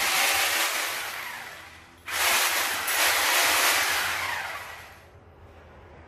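Corded electric drill run twice, its motor and fan giving a loud hissing whir that starts abruptly and winds down over about two seconds each time.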